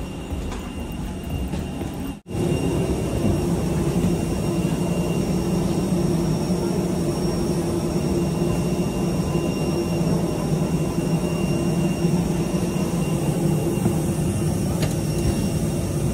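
Steady drone of a parked airliner's machinery heard from the jet bridge and the aircraft's boarding door, a low hum with a faint high whine above it. It drops out for an instant about two seconds in and comes back a little louder.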